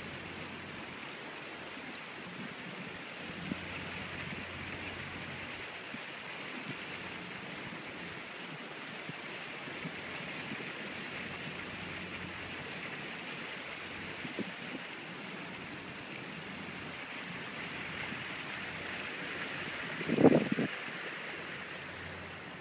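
Steady rushing of water along the steel hull of a barge under way, with a low steady hum underneath. About twenty seconds in comes a single loud thump.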